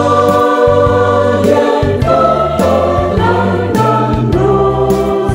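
Mixed church choir of men's and women's voices singing a hymn in harmony.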